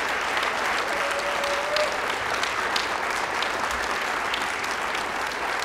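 Large audience applauding steadily in a standing ovation.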